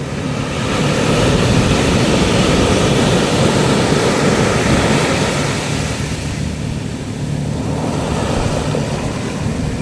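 Sea waves breaking and washing up the beach: the surf swells about a second in, stays strong for several seconds, then eases off past the middle and goes on more evenly.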